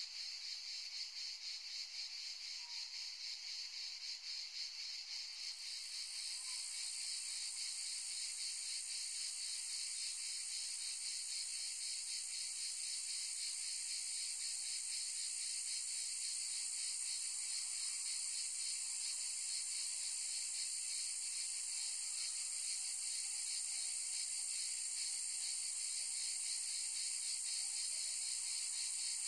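Cicadas buzzing in a steady, fast-pulsing chorus. A second, higher and louder buzz joins about six seconds in and keeps going.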